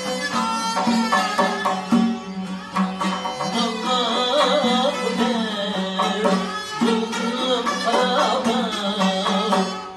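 A small traditional folk ensemble playing: a frame drum beats a steady rhythm under long-necked lutes, one plucked and one bowed, with a sustained low drone and a wavering, ornamented melody line.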